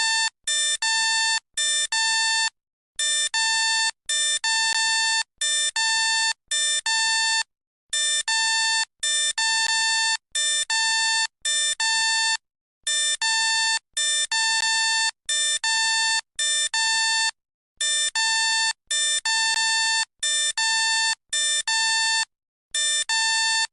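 Electronic alert sound effect: short, buzzy beeps in a fixed pattern that repeats over and over, with a brief silent pause about every five seconds.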